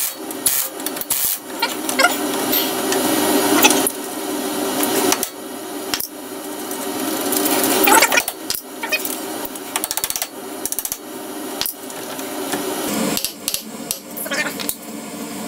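A spanner loosening the 22 mm bolts that hold the hub carrier to the suspension strut: metal-on-metal rasping and clicking, in stretches that swell in loudness, with a few knocks and a run of quick regular clicks about two thirds of the way through.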